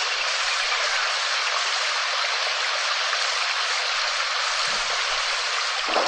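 Steady, even hiss of heavy rain falling, which becomes fuller and deeper just before the end.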